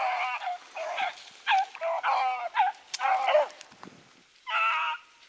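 Young rabbit hounds baying on a rabbit's track: a quick run of pitched yelps and bawls, one after another, with a longer held bawl near the end.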